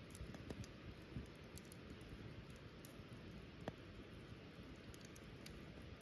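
Small wood fire crackling faintly: scattered soft clicks and pops, with one sharper pop a little past halfway.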